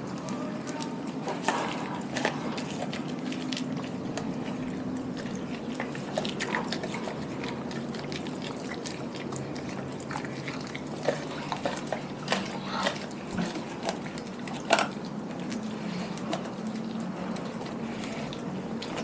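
A Doberman chewing and tearing at a whole raw chicken: wet smacking and licking broken by sharp crunching clicks, which come thickest about two-thirds of the way through. A steady low hum runs underneath.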